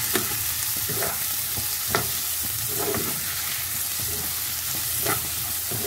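Freshly added chopped onions sizzling in hot oil in a non-stick pan, stirred with a spatula. A steady frying hiss runs throughout, with a few short scrapes and taps of the spatula against the pan.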